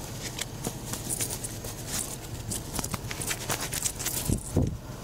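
Handling noise on a body-worn camera: irregular clicks and rustles, ending in two low thumps about four and a half seconds in, over a steady low hum.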